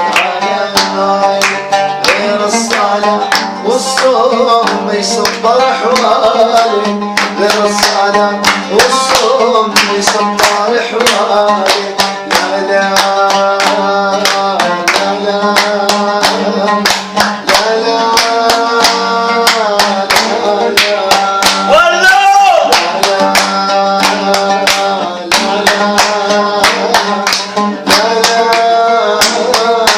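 Music: a plucked string instrument playing a melody over a steady held low note, with quick percussion strokes throughout.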